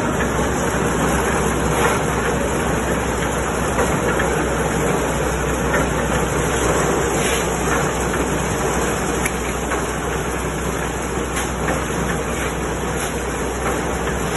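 Engine-driven portable drum concrete mixer running steadily with its drum turning, a continuous low rumbling hum, with a few faint knocks scattered through it.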